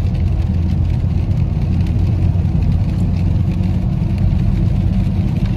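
A car driving, with a steady low rumble of engine and road noise heard from inside the cabin.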